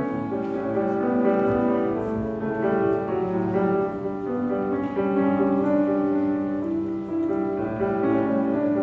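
Slow piano accompaniment of held chords, the instrumental intro before the singing comes in.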